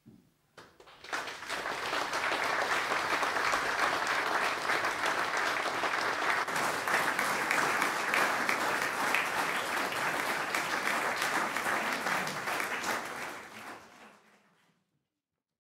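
Audience applauding: dense clapping that starts about a second in, holds steady, and dies away near the end.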